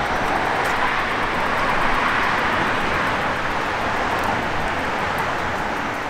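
A vehicle passing on a wet street, a rushing tyre-and-traffic noise that swells to its loudest about two seconds in and then slowly fades away.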